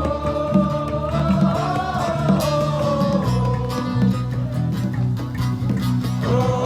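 Live acoustic band music: strummed guitar and bass chords under one long held sung note that drifts slightly up and then back down.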